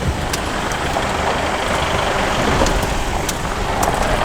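A motor vehicle on the move: a steady engine and road rumble with a few sharp clicks.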